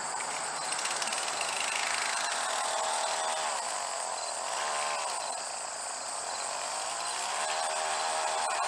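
Two-stroke engine of a Snapper commercial weed eater fitted with a circular saw blade, running and revving up and down several times.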